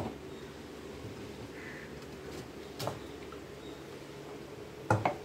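Knife prying coconut meat out of a broken coconut shell. A few sharp clicks and knocks of the blade against the shell come at the start and just before three seconds in, and the loudest pair comes near the end, over a steady low hum.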